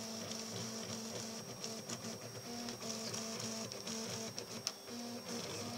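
Printrbot Plus 3D printer printing: its stepper motors sing in short steady tones that jump from pitch to pitch as the print head and bed change speed and direction, with a few light ticks about four and a half seconds in.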